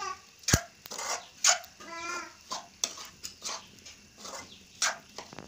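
Sharp clinks of a metal spoon striking an aluminium kadai while soya chunks are stirred, the loudest about half a second in. Short high-pitched cries come twice in the background.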